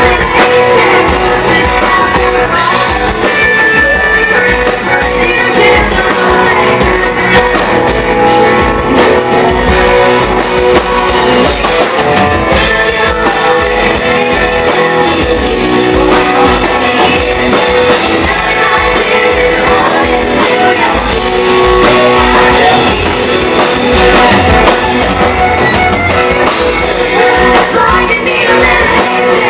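Live rock band playing loud and without a break: a singer over guitar and drum kit.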